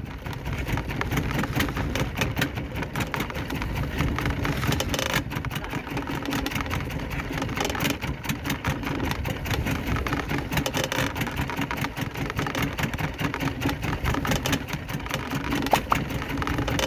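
A small fishing boat's engine running steadily, with a fast even run of firing pulses.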